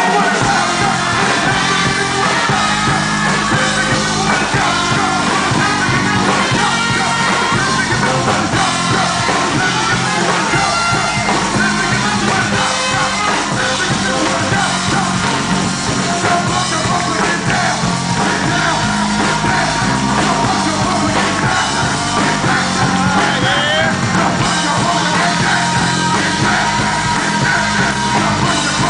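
Batucada band playing live: driving samba drums with brass.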